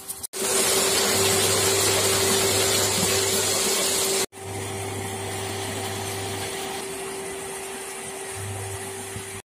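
Water gushing from pump outlet pipes and splashing into a brick water tank, a loud steady rush with a faint steady hum under it. About four seconds in it cuts to a quieter steady rush.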